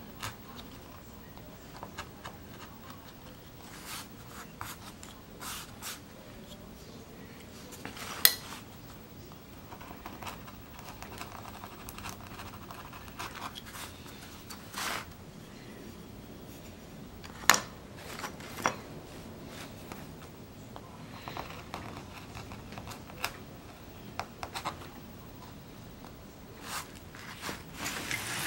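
Hand gouge cutting into a plywood woodcut block: irregular small scraping and scratching strokes with a few sharp clicks, the loudest about eight and seventeen seconds in.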